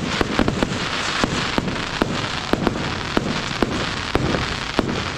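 Many fireworks going off at once: a continuous crackle and hiss broken by frequent sharp bangs, several a second.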